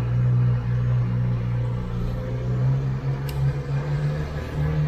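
Motorcycle engine running at low revs as the bike rolls slowly, a steady low hum whose pitch steps up a little near the end. A single sharp click about three seconds in.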